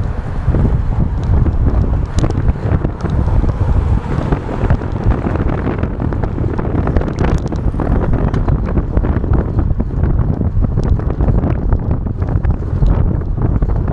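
Wind buffeting the microphone of a DJI Action 2 camera while riding, a loud, fluctuating low rumble with scattered small ticks.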